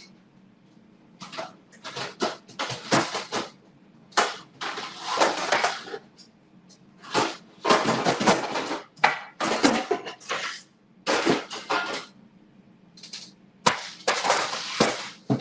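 Kitchen clatter: dishes and utensils handled at a counter in many short, irregular knocks and rattles. It starts about a second in.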